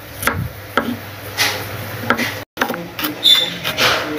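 Kitchen knife slicing shallots on a wooden cutting board, knocking about twice a second. After an abrupt break, a metal pot knocks with a brief ringing clink.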